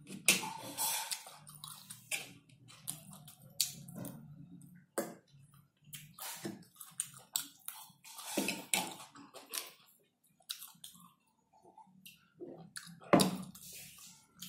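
Close-up eating sounds: a man chewing and slurping chow noodles, with scattered light clicks of a spoon and fork on the plate. A single sharp knock stands out near the end.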